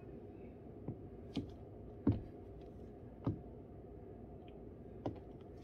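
Heels of strappy high-heeled sandals tapping on the floor as the wearer shifts her feet: about five sharp taps at irregular intervals, over a steady low hum.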